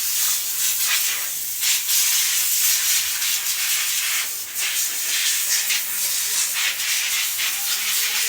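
Steady, loud hiss of pressurized spray, like air or liquid forced from a nozzle, running unbroken.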